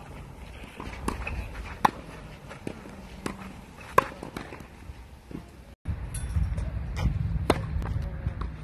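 Tennis rally: sharp pops of racket strings striking the ball, with softer ball bounces on clay, the loudest hit about four seconds in. Around six seconds in the sound cuts out briefly and picks up again with a steady low rumble under further racket hits.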